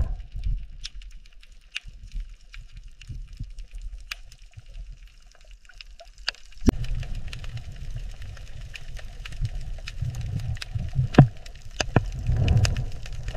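Underwater ambience: a low rumble of moving water with scattered faint clicks and crackles. The rumble grows louder about seven seconds in.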